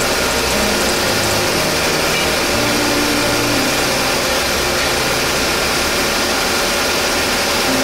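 Industrial circular saw cutting machine for metal running, a loud, steady machine noise.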